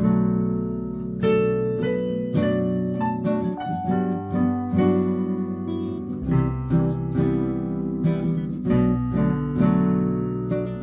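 Instrumental passage with no singing: plucked chords and single notes, each striking sharply and dying away.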